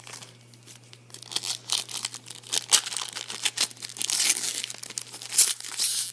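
Foil trading-card pack wrapper being torn open and crinkled: a run of sharp crackles that starts about a second in and grows louder. A steady low hum runs underneath.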